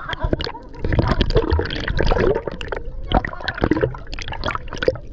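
Water splashing, sloshing and gurgling around an action camera as it dips in and out of the sea beside a swimming snorkeler, with a rumbling, muffled wash each time it goes under.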